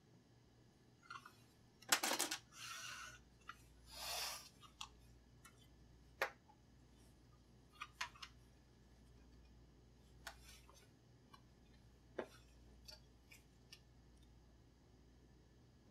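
Plastic labware being handled on a bench: a clatter about two seconds in and two short scrapes as Petri dishes are moved and stacked, then scattered light clicks and taps from a micropipette and tubes.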